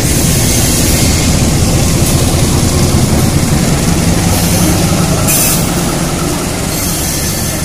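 CC 201 diesel-electric locomotive passing slowly at close range, its diesel engine running loudly. About five seconds in the engine sound eases as the locomotive goes by and the first cars of the train roll past.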